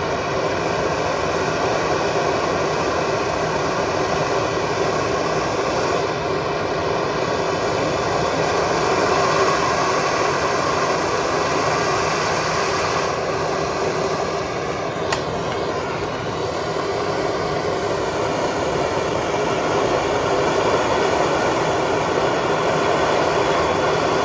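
Soldering torch flame burning with a steady rushing noise while heating a copper pipe joint, the solder not yet taking. A single sharp click about fifteen seconds in.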